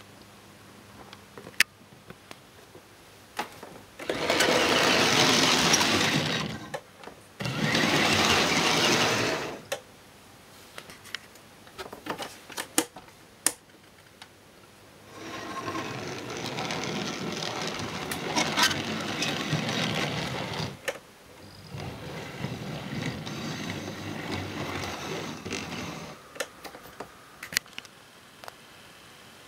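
OO gauge K's Kits LMS Princess Royal model locomotive with an RG4 motor and gearbox, running along the layout track. It makes a whirring motor-and-wheel noise that comes in four stretches, the first two the loudest, with scattered sharp clicks throughout.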